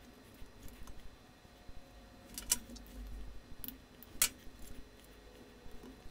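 Wires and small plastic connectors handled inside a 3D printer's electronics bay: faint scattered clicks and rustling, with sharper clicks about two and a half and four seconds in.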